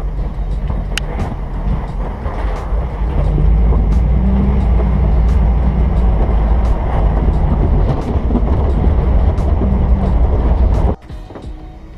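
A vehicle running with a loud, steady low rumble and scattered ticks and rattles. It cuts off suddenly about eleven seconds in.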